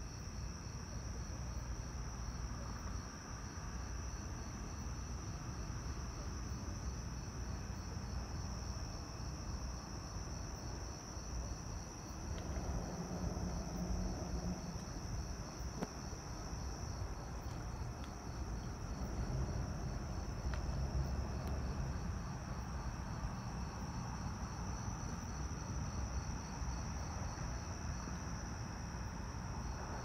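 Insects chorusing: a steady high-pitched trill with a row of regular chirps just below it, over a low background rumble.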